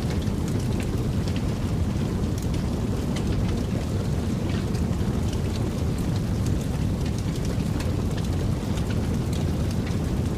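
Fire burning, a steady low rumble of flames with frequent small sharp crackles scattered throughout.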